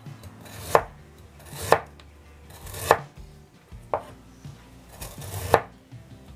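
Kitchen knife slicing through unpeeled ginger root and knocking on the cutting board, five cuts about a second apart, each a short scrape ending in a sharp knock.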